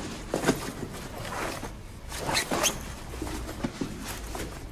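A laptop being handled and stuffed into a soft fabric bag: an irregular run of short rustles, scrapes and light knocks.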